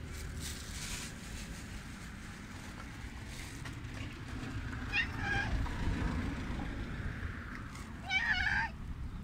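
Big male tabby cat meowing: a couple of short calls about five seconds in, then a louder, longer meow near the end, over a steady low background rumble.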